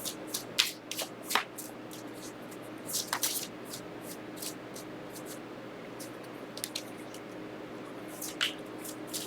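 Tarot cards being handled on a table: scattered short slaps and slides of card stock, loudest in a cluster about three seconds in and again near the end, over a faint steady hum.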